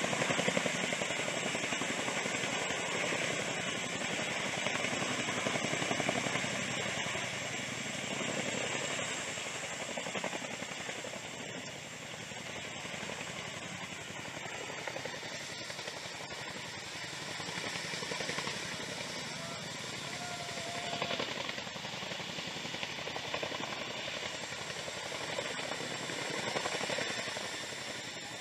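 RAF Chinook tandem-rotor helicopter hovering with underslung loads: a steady, rapid rotor chop over engine noise, with a thin high whine.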